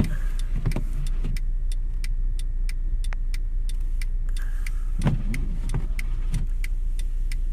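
Car cabin sound while idling in stopped traffic: a steady low engine and road rumble, with faint quick ticks throughout and a couple of brief low sounds in the middle.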